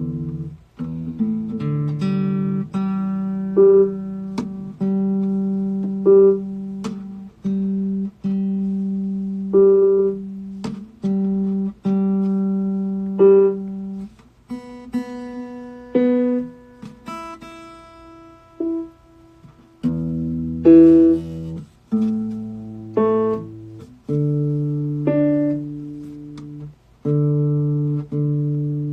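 Slow instrumental music: guitar chords, each struck and left to ring out, a new chord every second or two.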